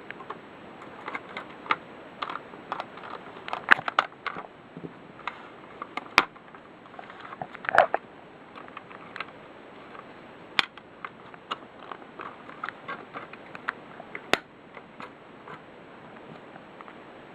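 Irregular clicks, taps and knocks of a plastic smoke detector being handled, with a handful of louder knocks scattered through, over a steady hiss. No alarm tone sounds.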